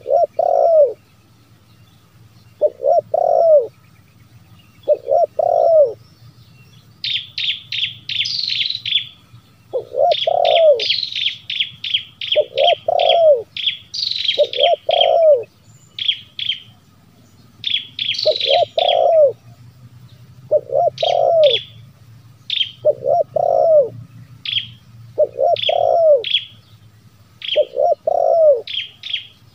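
Spotted dove (terkukur) cooing, a lure call: short phrases of low, arching coos repeated every two seconds or so. From about seven seconds in, a small bird chirps in fast, much higher-pitched runs between the coos.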